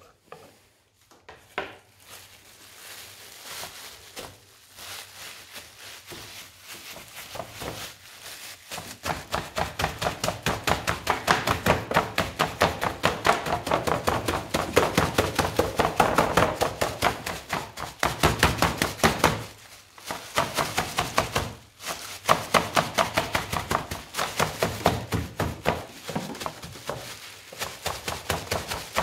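Crumpled household plastic film dabbed rapidly and rhythmically onto wet acrylic paint on a canvas: a steady run of crinkling, sticky taps, softer at first and much louder from about a third of the way in, with a couple of short pauses.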